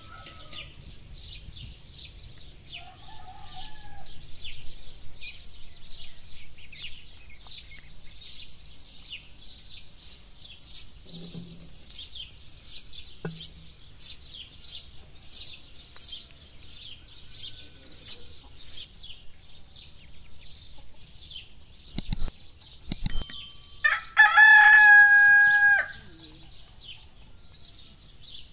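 A rooster crows once near the end, the loudest sound here, over steady rapid chirping of small birds. A couple of sharp knocks come shortly before the crow.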